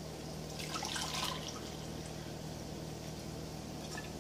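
Coffee poured from a glass carafe into a ceramic mug in a short splashing pour lasting about a second. Near the end there is a faint clink as the carafe is set back down on the stove.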